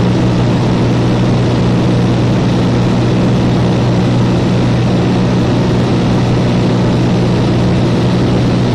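A Cessna light aircraft's engine and propeller droning steadily in flight: a constant low hum with no change in pitch.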